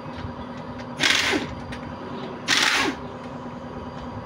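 Air impact wrench fired in two short bursts, about a second and a half apart, each trailing off as it spins down: it is loosening the bolts of a transmission's rear cover.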